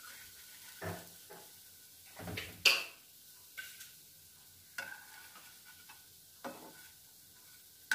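Plastic spatula scraping and knocking against a nonstick frying pan as shallow-fried cutlets are lifted out, a handful of short scrapes spread through, the loudest nearly three seconds in, over a faint sizzle of oil.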